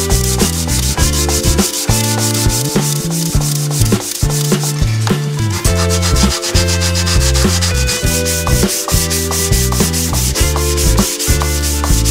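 Sandpaper rubbing on wood in a steady rasp of repeated strokes, under background music with a bass line and chords.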